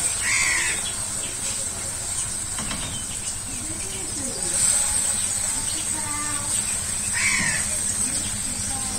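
A crow cawing twice, once at the start and again about seven seconds in, over a steady high hiss.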